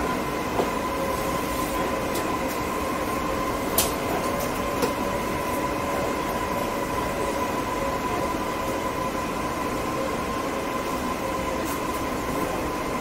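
Metro train car's interior running noise at speed: a steady rumble with a constant high whine. A few sharp clicks come through, the loudest about four seconds in.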